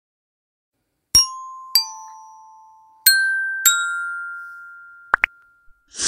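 Intro jingle of bell-like mallet notes: four struck notes in two pairs, each ringing out and slowly fading, then two quick short blips near the end.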